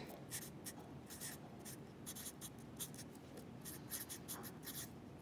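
Felt-tip permanent marker (Sharpie Industrial) writing on paper: a rapid series of short strokes as a word is written out.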